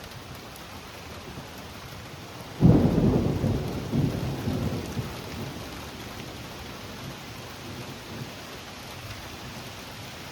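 Steady rain falling, with a sudden clap of thunder about two and a half seconds in that rumbles and fades over the next few seconds.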